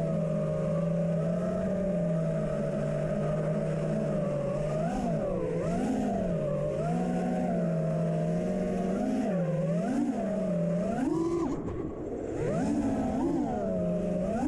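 FPV quadcopter's brushless motors and propellers whining as heard from the onboard camera, the pitch holding steady at first and then rising and falling over and over with throttle changes from about five seconds in, dipping briefly in level near the end.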